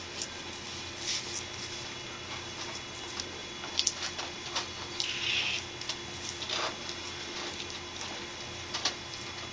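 Room tone: a steady low hum with hiss, broken by scattered small clicks and rustles, the sharpest a quick double click a little under four seconds in.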